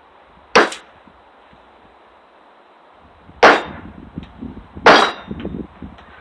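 Three sharp metal-on-metal clangs, about half a second, three and a half and five seconds in: a hammer striking the back of a survival hatchet's head to drive it into a log and split it. The last two strikes are followed by a run of smaller, irregular knocks.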